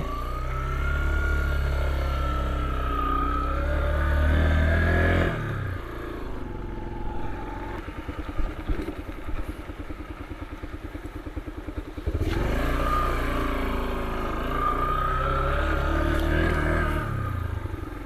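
Yamaha trail motorcycle's single-cylinder engine running under way, then easing off about five seconds in to a slower, evenly pulsing run for several seconds. It pulls away again about twelve seconds in and runs steadily until it eases off near the end.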